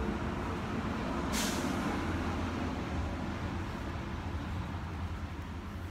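A vehicle engine running with a steady low rumble, and a short hiss about a second and a half in.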